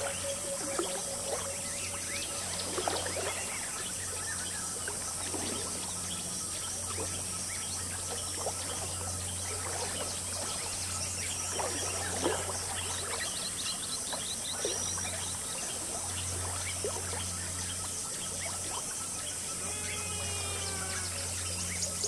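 Jungle river ambience: water babbling and trickling, over a steady high-pitched insect drone, with scattered bird calls that grow busier near the end.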